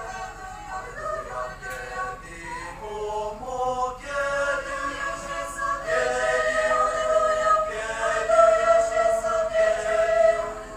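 A choir singing, holding long sustained notes; the singing grows louder about four seconds in and again about six seconds in.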